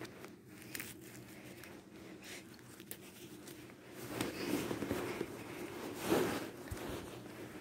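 Rustling and handling noise with a few soft clicks from a phone being swung about, with louder rustles about four and six seconds in.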